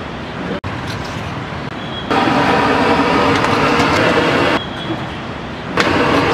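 Road traffic noise from a busy street. Two loud, steady, pitched blasts cut in and out abruptly: one about two seconds in lasting about two and a half seconds, and another starting near the end.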